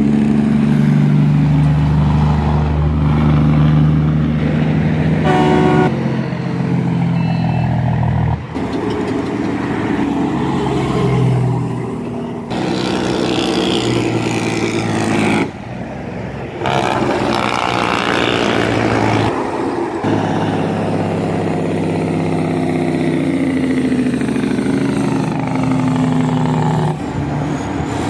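Heavy diesel trucks, including a tri-axle dump truck and tractor-trailers, running past on the road with a steady engine drone whose pitch rises and falls. A brief horn toot comes about five seconds in. The sound changes abruptly several times where clips are joined.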